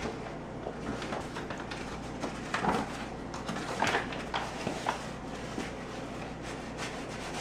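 Spoon stirring pancake batter in a bowl: irregular scrapes and light knocks of the utensil against the bowl.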